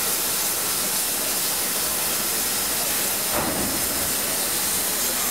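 Steam locomotives letting off steam: a steady, even hiss.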